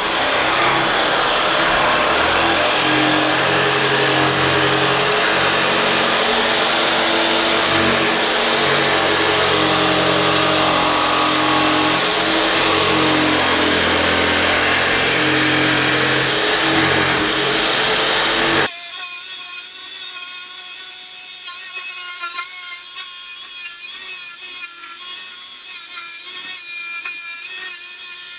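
A power tool working wood runs loudly, a harsh noise over a steady hum. About two-thirds of the way through it cuts off abruptly, and a quieter, higher-pitched whine made of several steady tones takes its place.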